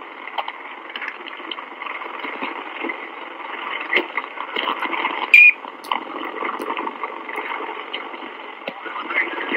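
Old Dallas police two-way radio recording off a Dictabelt: open-channel hiss held to a narrow, thin band with scattered clicks, and a short high tone about five seconds in.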